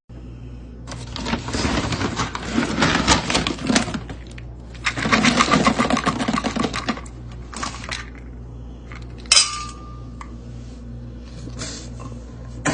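Two long spells of rattling clatter of small hard objects, then a single sharp clink that rings briefly about nine seconds in, over a steady low hum.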